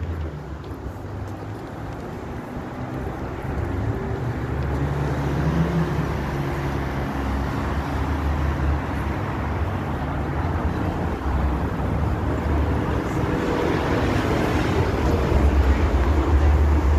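Road traffic on a city street: motor vehicle engines rumbling and tyres hissing as cars pass, growing louder after about four seconds and loudest near the end.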